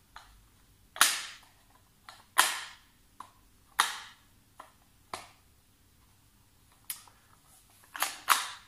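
A string of sharp clicks with a short ring after each, unevenly spaced: three loud ones in the first four seconds, smaller ones between, and a quick pair near the end.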